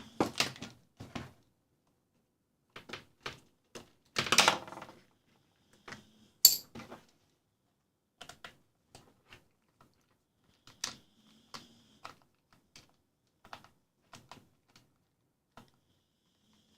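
Irregular small clicks and knocks of screws being taken out of a plastic trouble-light housing and the housing being handled, with a few louder clatters, one near the start, one at about four seconds and a sharp one at about six and a half seconds.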